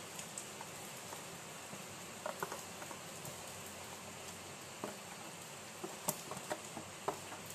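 Wet grated cucumber dropping and being pushed into a stainless-steel mesh strainer: faint soft pattering and a few light taps of the glass container on the strainer, over a steady faint hiss.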